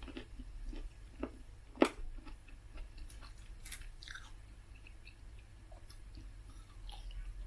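Close-up chewing of cherries: soft, wet mouth sounds with scattered small clicks, one sharper click about two seconds in.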